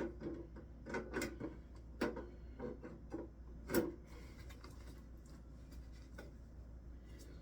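Plastic parts of an animatronic prop being handled and fitted together: scattered knocks, clacks and rubbing, the loudest knock about four seconds in, after which it goes quiet.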